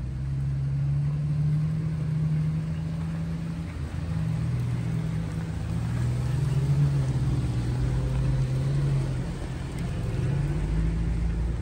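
A 4x4's engine running at low revs, its pitch drifting slightly up and down under light throttle.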